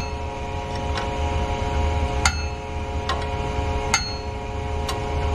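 Adjustable wrench clinking against metal pipe fittings of a fire sprinkler valve trim: about five sharp metallic clinks with a brief ringing note, over a steady background hum.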